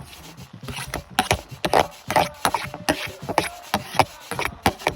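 Irregular scraping and knocking, about a dozen short rough strokes with uneven gaps, as of something being worked or handled by hand.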